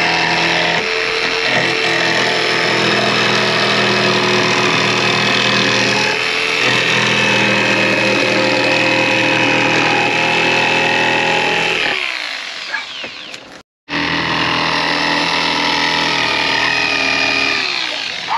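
SKIL corded jigsaw cutting through a fiberglass bus roof: the motor runs steadily with the blade sawing, winds down about twelve seconds in, then starts again and winds down near the end.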